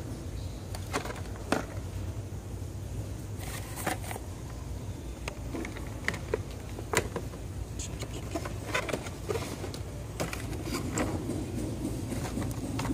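Scattered clicks, ticks and rustles of toy-car packages and the phone being handled at a shelf, over a steady low hum of store background.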